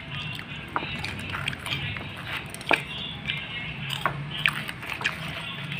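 A few scattered sharp clicks and taps as children eat a small snack with chopsticks from plastic bowls, over a steady low background hum and faint distant voices.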